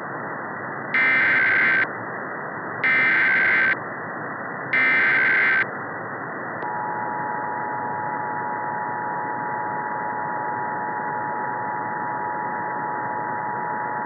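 Emergency Alert System tones over a steady hiss of radio static: three short, harsh buzzing data bursts (the SAME header), each under a second long and about a second apart, then the steady two-tone attention signal begins about six and a half seconds in.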